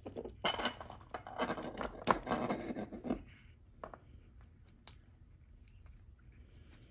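Scraping and rustling of an LED's wire being fed through the arm of a 3D-printed plastic part, for about three seconds, then a few faint ticks.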